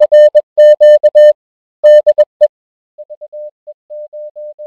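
Morse code sent as a steady beeping tone, keyed in dots and dashes. It is loud for about two and a half seconds, then after a short gap carries on fainter.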